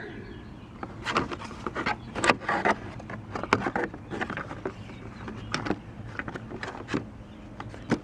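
A plastic door sill plate is pushed and fitted into place along the rubber door seal of a Nissan Frontier, giving a run of small irregular clicks, taps and rubbing.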